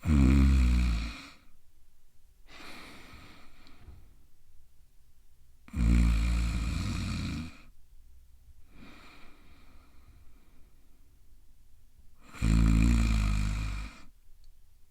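A person snoring: three loud, rattling snores about six seconds apart, each followed by a fainter breath out.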